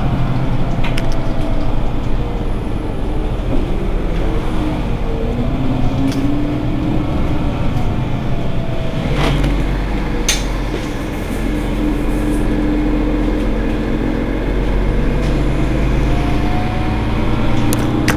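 Idling engine of an articulated Mercedes-Benz Citaro G C2 city bus standing at a stop: a steady low hum, with a fainter whine that slowly slides in pitch and a couple of short clicks about halfway through.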